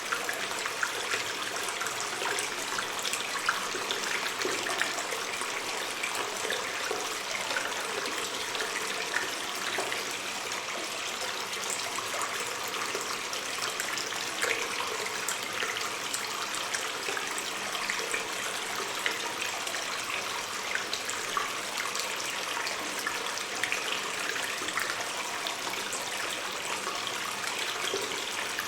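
Water stream trickling and splashing steadily in a cave, with many small drips and splashes in the flow.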